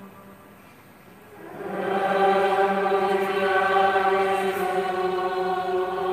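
Choir and congregation singing the response that closes the Gospel reading, in long held notes of several voices together. The singing comes in about a second and a half in, after a short lull.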